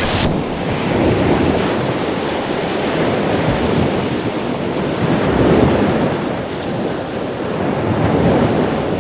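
Steady rushing noise that swells and eases every couple of seconds.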